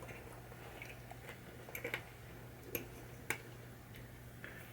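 Scattered faint clicks and taps of a hand tool and screws against the metal drop target bracket while it is screwed back into the pinball playfield, over a faint steady hum.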